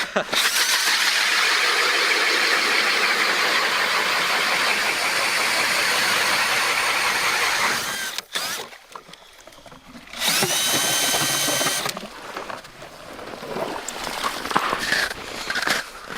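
Power ice auger drilling into lake ice: a long run of grinding noise of about eight seconds, a short pause, then a second, shorter run about ten seconds in with a steady motor whine, followed by scattered scraping and knocks.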